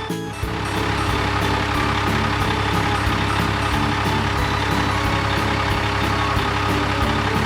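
Truck engine running steadily, with background music underneath.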